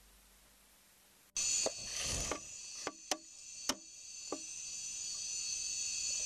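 Night forest insect chorus, a steady high-pitched shrill that cuts in suddenly a little over a second in. Over it come about six sharp knocks and a brief rustle during the next three seconds.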